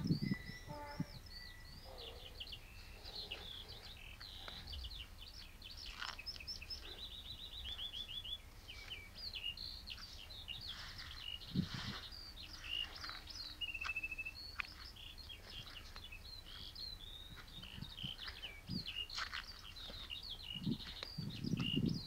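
Several small songbirds singing and chirping together in a continuous chorus of quick high notes, with a fast run of repeated notes about seven seconds in and a short held whistle near fourteen seconds. A brief soft thump about twelve seconds in.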